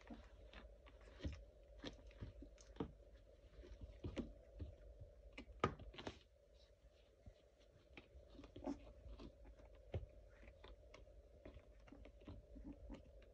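Faint, irregular soft clicks and rustles of young Labrador puppies shuffling and mouthing each other on a puppy pad, over a faint steady hum.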